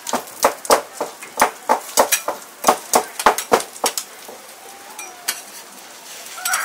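Metal spatulas scraping and tapping on a steel griddle in quick, uneven strokes as egg is spread over grilled cold-noodle sheets; the strokes stop about four seconds in.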